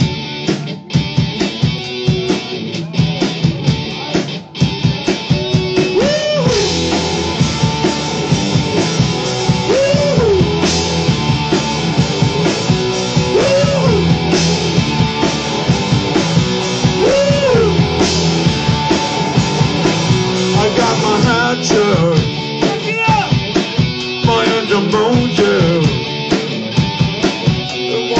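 Rock band playing a song on drum kit and electric guitars. A sliding melodic line comes back every few seconds over a steady drum beat.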